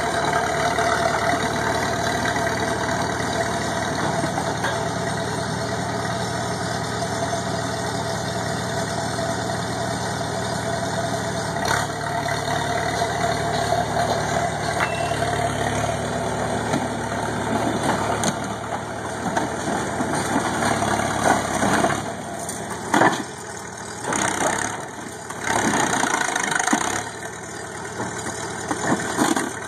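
Diesel engine of a small crawler loader running steadily, then from about two-thirds of the way in coming and going in uneven surges with a few sharp knocks as the bucket is worked down onto the crushed truck.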